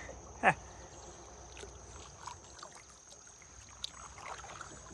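Kayak paddling on the river: the paddle dips and drips in the water, with one sharp knock about half a second in, likely the paddle striking the kayak hull.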